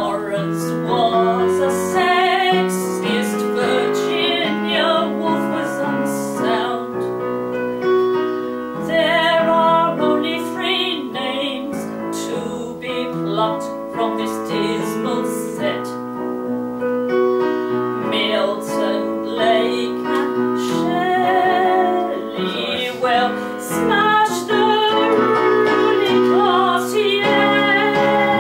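A woman singing a ballad with piano accompaniment.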